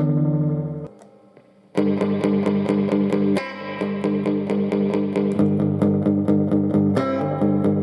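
Electric guitar played through a Fender all-tube combo amp with a single 12-inch speaker, lightly overdriven, over a steady ticking beat. The playing stops briefly about a second in and then starts again.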